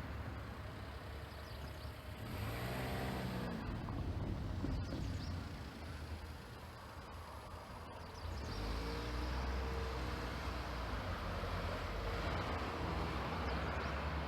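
Engines of passing motor vehicles, one going by about two seconds in and another about eight seconds in, their pitch rising and falling as they pass, over a steady low rumble.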